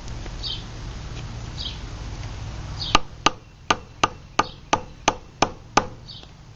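Nine sharp, evenly spaced taps, about three a second, each with a short ring, as the first handle slab is knocked down onto the tang and pins of the forged knife.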